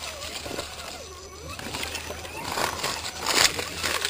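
RC crawler driving over dry dirt and leaf litter: crunching and rattling from the tyres and chassis, with a motor whine that rises and falls with the throttle, and a louder crunch a little after three seconds in.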